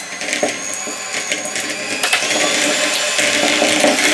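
Electric hand mixer running with a steady whine, its two beaters creaming soft butter in a plastic bowl, with a few sharp clicks.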